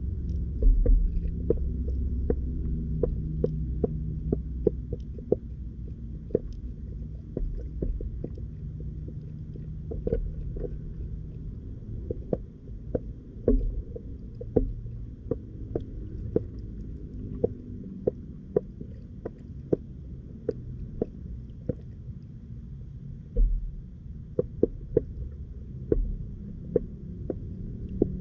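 Muffled underwater sound heard through a submerged camera: a steady low rumble of water, with irregular sharp clicks and taps, roughly one or two a second.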